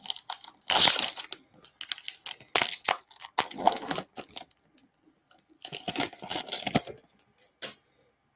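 Crinkling and rustling of Bowman Baseball card pack wrappers and cards being handled, in several irregular bursts with short quiet gaps. The loudest crinkle comes about a second in.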